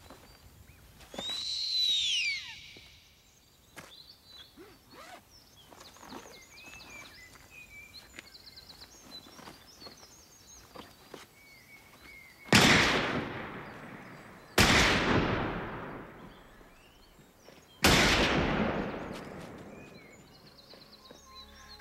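Birds chirping here and there in a forest, with one loud falling call about two seconds in. In the second half come three loud, sudden bangs a couple of seconds apart, each ringing out and dying away over about two seconds.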